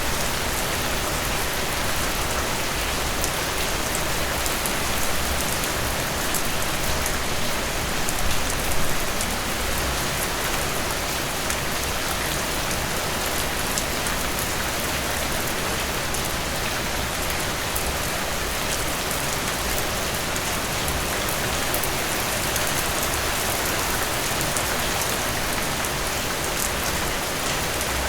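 Steady rain falling, a dense even hiss with fine drops pattering on a surface.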